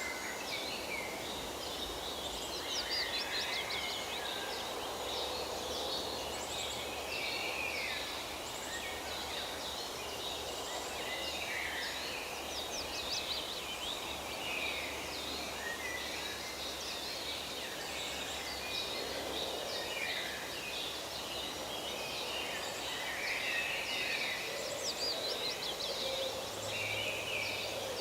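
Forest ambience: several birds singing and calling throughout, with quick chirps and fast falling notes, over a steady background hiss.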